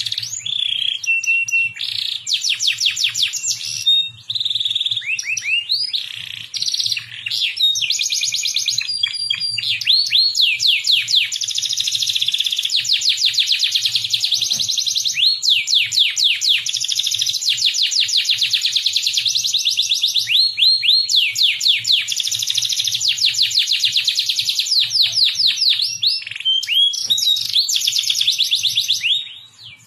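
Domestic canary singing a long, continuous song of rapid trills and rolls, fast runs of repeated notes that change from phrase to phrase, with only brief breaks. It is a tutor song of the kind played to young canaries to teach them to sing.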